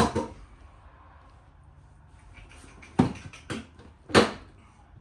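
Sharp knocks and clicks of the car's bumper clips and parts being worked into place by hand: one right at the start, two about three seconds in, half a second apart, and the loudest a little after four seconds.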